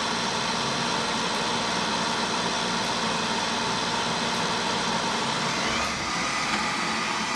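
Xiaomi Mi Robot Vacuum-mop Essential running its suction fan at the start of a full cleaning run, a steady even whir.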